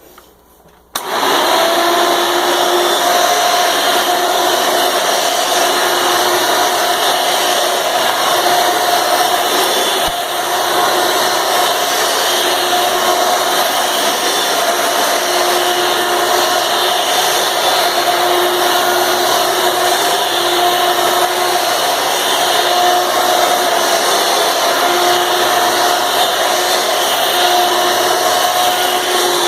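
Hoover Runabout upright vacuum cleaner switched on about a second in, its motor and fan then running steadily with a constant hum and whine. It sounds rather loud for a Hoover Elite-type machine.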